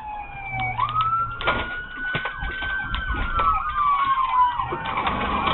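Police car siren wailing: a slow rise and fall in pitch, sweeping up sharply about a second in and then sliding slowly down. A second siren with a faster rise and fall joins briefly in the second half.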